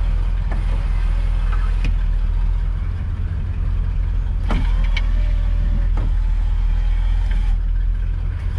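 1973 Corvette L82's 350 small-block V8 idling steadily while the electric power-window motor runs the door glass, a faint whine heard briefly at first and again for about three seconds from the middle on, with a few clicks of the switches.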